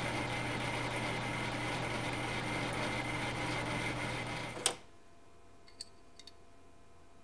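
Logan metal lathe running with a boring bar cutting a register inside a spinning spindle adapter: a steady motor hum with cutting noise, which stops abruptly about two-thirds of the way through. A few faint light clicks follow as a telescoping gauge is handled in the bore.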